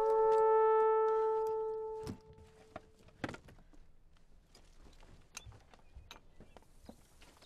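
Film score: a single held brass note, horn-like, that fades out over about two seconds. It is followed by faint scattered clicks and knocks, the most distinct about three seconds in.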